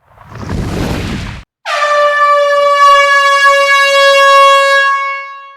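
A rushing noise swells for about a second and a half and cuts off abruptly. Then a loud air-horn blast holds one steady pitch for about four seconds and fades out near the end.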